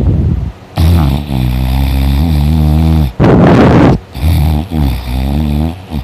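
Loud snoring from a man sleeping on his back: two long, low rattling snores of about two seconds each, with short, harsh rushes of breath between and around them.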